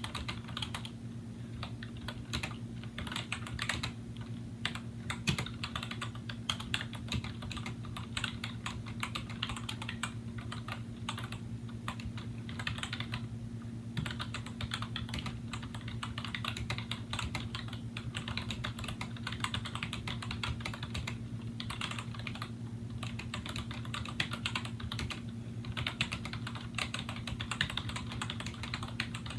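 Steady typing on an Apple M7803 Pro Keyboard with Mitsumi rubber-dome switches and integrated sliders: a fast, dense run of key clicks with a few short pauses, over a steady low hum.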